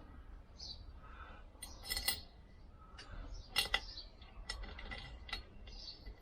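Small metal parts and tools handled on a workbench: a handful of separate light metallic clinks and taps, the loudest about two seconds in and another just past halfway.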